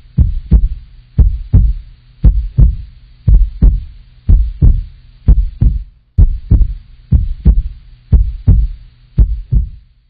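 Heartbeat: a steady double thump (lub-dub) about once a second, over a low steady hum, with a brief dropout around six seconds in.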